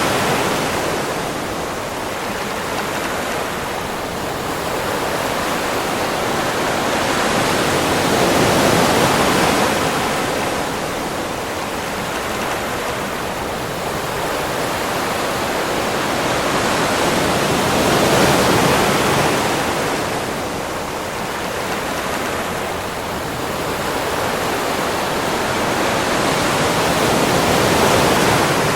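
Ocean surf washing onto a beach: a continuous rushing hiss that swells with each wave about every nine seconds, three times, and eases back between.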